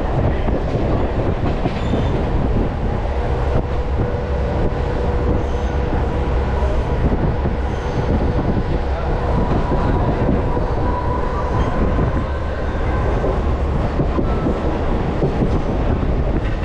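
Mumbai suburban electric local train running, heard from inside the carriage by an open barred window: a steady rumble of wheels on rails with a few clicks and a couple of thin, drawn-out wheel squeals.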